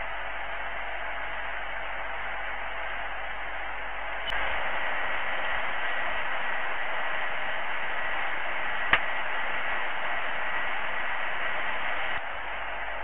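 Steady static-like hiss that steps louder about four seconds in and drops back near the end, with a faint steady high tone through the louder part and a single sharp click about nine seconds in.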